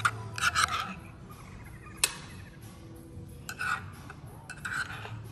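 Scattered clinks of metal cutlery against dishes and pots, the sharpest about two seconds in, over a faint steady low hum.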